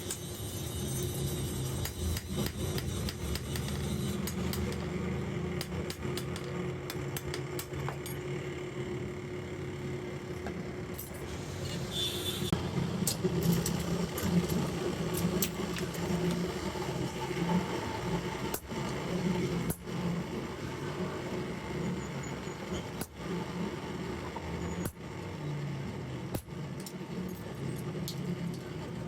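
Metalworking workshop sounds: a machine's steady low hum with scattered metallic clinks and taps, and a short harsher burst of noise about twelve seconds in.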